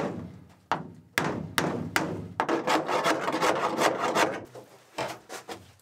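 Hammer knocking on the edge of a wooden V-berth panel to seat it in place against the hull foam. A series of sharp knocks on wood crowds into a quick run of blows about halfway through, then two more knocks near the end.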